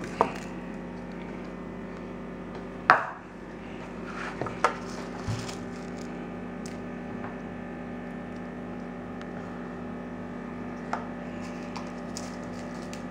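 Occasional light knocks and clicks of plastic bowls and a baking tray being handled, the loudest about three seconds in, over a steady low hum.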